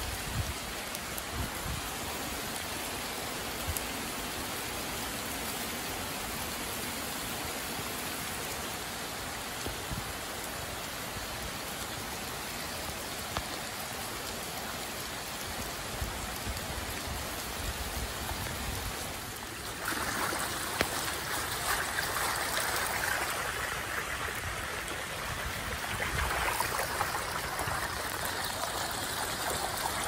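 Heavy rain falling on a flooded road, with runoff water flowing over the pavement. About twenty seconds in the sound changes suddenly to louder rushing floodwater running shallow over the street.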